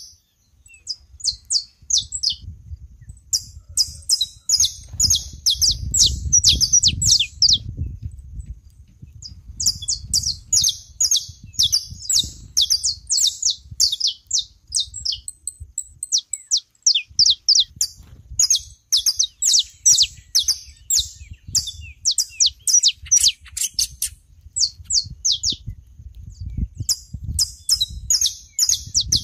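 Saffron finches chirping and singing in repeated runs of sharp, high notes, with short pauses between runs. A low rumble sits underneath and is strongest about a fifth of the way in and again at the end.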